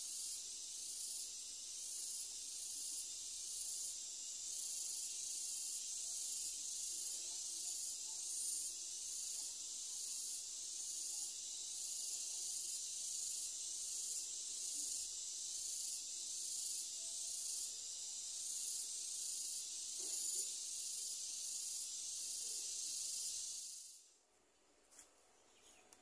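High, hissing insect chorus, pulsing about twice a second, that cuts off abruptly near the end.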